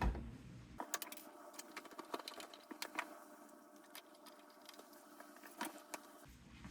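Faint, scattered small clicks and ticks of screws being driven and hardware handled while a power supply is screwed onto a 3D-printed plastic case panel.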